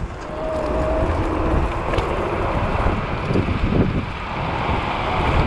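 Wind rushing over the microphone as electric scooters accelerate at full throttle from a standing start, with a short whine about half a second in.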